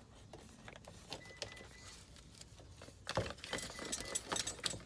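Small hand tools clinking and rattling as they are rummaged through in a tool pouch: faint scattered clicks at first, then a run of sharp clinks from about three seconds in.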